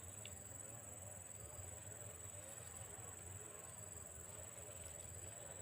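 Insects trilling steadily in the background, a constant faint high-pitched buzz.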